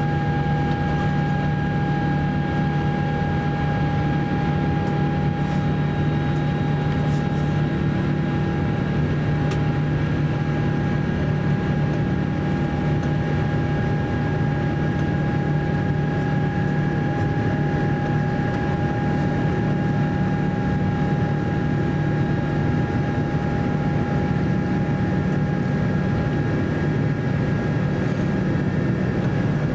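Cabin noise of an Airbus A350-900 during the climb: a steady roar of its Rolls-Royce Trent XWB engines and rushing air, with a constant hum and whine that hold one pitch throughout.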